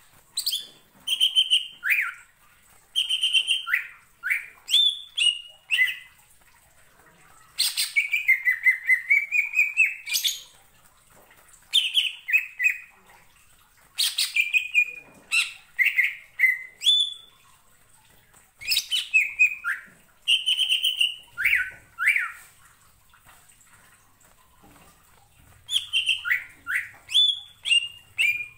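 Cucak ijo (green leafbird) singing vigorously in bursts of a few seconds with short pauses. Its loud whistled notes slide downward, mixed with rapid clicking chatter, and one longer phrase comes about eight seconds in.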